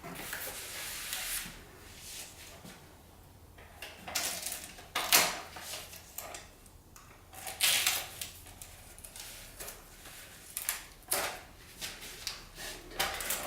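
A creased box sheet being handled and bent by hand: irregular scraping and rustling with a few sharper knocks about 5, 7.5, 11 and 13 seconds in.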